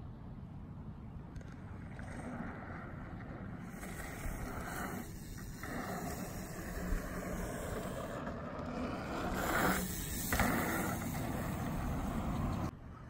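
Steady rushing noise from wind on the microphone and a mountain bike's tyres rolling over packed dirt. It swells louder about ten seconds in.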